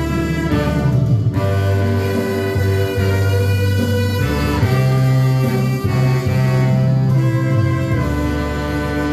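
Instrumental music: a held melody line over sustained bass notes that change every second or so.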